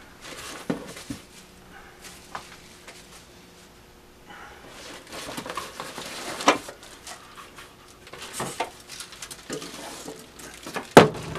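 Plastic packaging and cardboard rustling, with scattered light knocks and clicks as parts are taken out of a cardboard box; a sharper knock near the end.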